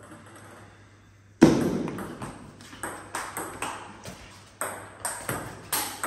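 Table tennis rally: the celluloid ball clicking off the bats and the table at an uneven pace. It opens about a second and a half in with a loud thump, the loudest sound here.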